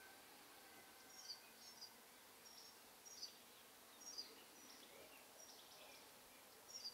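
Faint, short high chirps of small songbirds, a few at a time every second or so, over a low steady hiss.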